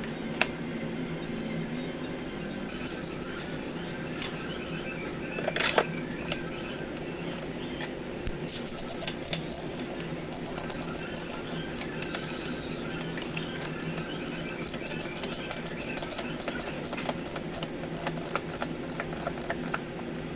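Light clicks and taps, some in quick runs and one louder knock about six seconds in, over a steady mechanical hum.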